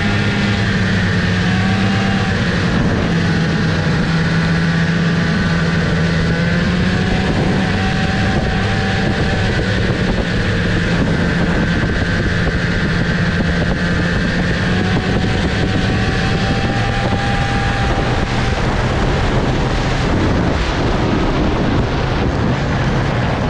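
1975 Arctic Cat Panther 440 snowmobile's two-stroke engine running at a steady cruising speed under way, heard from on the machine. The engine note eases off a few seconds before the end.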